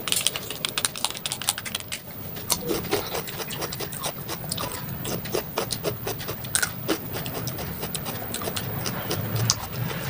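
A small plastic shaker shaken quickly over a plate of salad, the seasoning rattling out in rapid ticks for about the first two seconds. After that come scattered clicks and rubs as fingers handle sliced cucumber and tomato on a metal plate.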